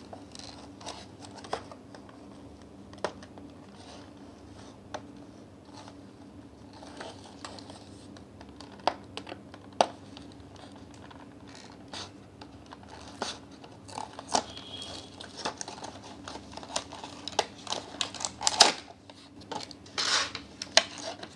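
Hands handling cardboard toy-car boxes and their packaging on a table: scattered light taps, scrapes and rustles, getting busier near the end. A steady low hum runs underneath.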